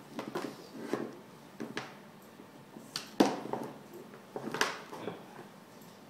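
Handling noise: a few scattered light knocks and clicks, loudest about three seconds in, with a second strong one near four and a half seconds.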